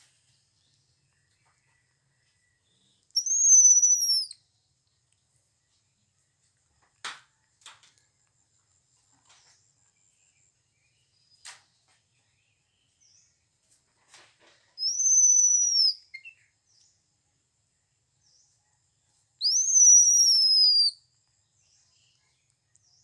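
Baby monkey giving three loud, high-pitched cries, each about a second long and falling away in pitch at the end. These are the distress cries of a frightened baby monkey, afraid of the mother cow. A few faint clicks fall between the first and second cries.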